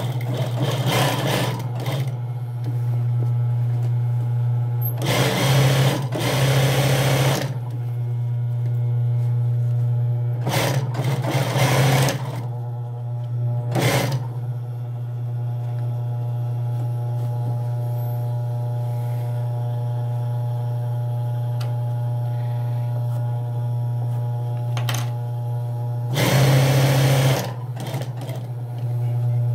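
Industrial flat-bed sewing machine stitching in short runs, about five in all, the longest around two seconds, with its motor humming steadily between runs.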